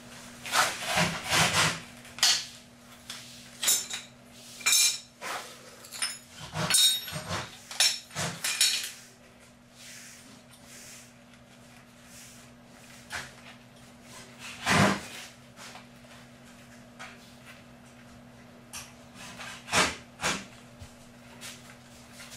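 Metal hand tools and pipe fittings clinking, knocking and scraping during pipe-repair work, busy with rapid knocks and ringing metallic clinks for the first nine seconds, then only a few separate knocks, the loudest about fifteen seconds in. A faint steady hum runs underneath.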